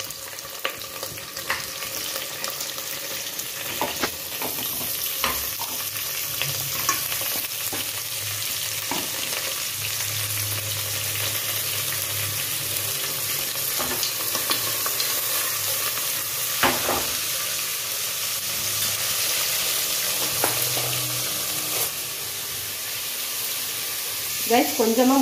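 Shallots, green chillies and goat trotter pieces sizzling in hot oil in a pressure cooker pan, with a spatula scraping and knocking against the pan as they are stirred.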